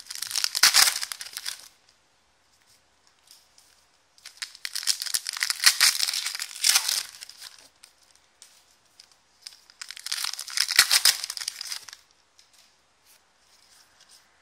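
Silvery foil wrappers of 2016-17 Excalibur basketball card packs being torn open and crinkled by hand, in three bouts of a couple of seconds each with short quiet gaps between.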